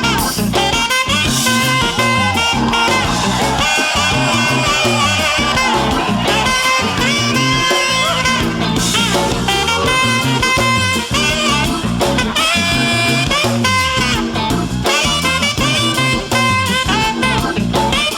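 Upbeat funk music soundtrack in an instrumental passage without singing: a steady bass-and-drum beat under pitched instrumental lines.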